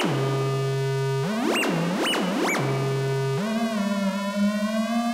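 Homemade breadboard build of the Mroztronium New Unusual Oscillator, amplified through a Bastl OMSynth, putting out a steady low electronic buzz. About a second in it is broken by three quick chirps that swoop up high and fall back. A little after three seconds it jumps to a higher buzzing tone that slowly rises and wavers as a knob is turned.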